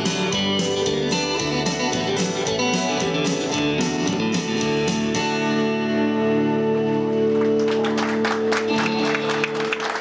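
Live acoustic guitar and bass guitar strumming the closing bars of a song, ending on a final chord that is held and left to ring out. About three-quarters of the way through, clapping starts up.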